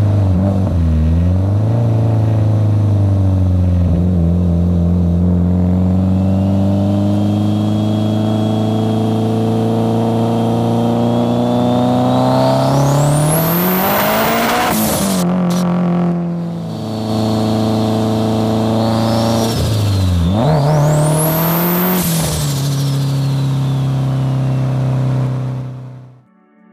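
Big-turbo Mitsubishi Lancer Evolution X's turbocharged four-cylinder running at a steady cruise, then accelerating hard twice, the engine pitch climbing with a high turbo whistle rising over it on each pull. There is a brief drop between the two pulls.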